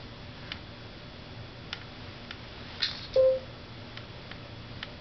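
A baby squirming in a fabric baby bouncer, with faint rustles and small clicks, and one brief, high-pitched vocal sound from the baby a little after three seconds in.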